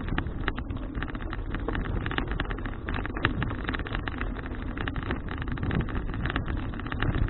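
Wind and road noise picked up by a handlebar or helmet action camera on a moving bicycle: a steady low rush broken by many small crackles and rattles.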